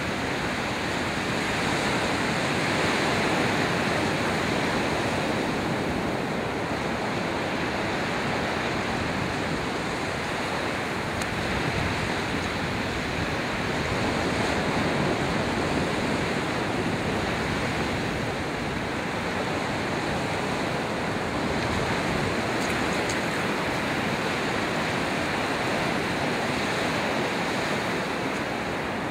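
Ocean surf breaking and washing up on a sandy beach: a steady rush that swells and eases slowly from wave to wave.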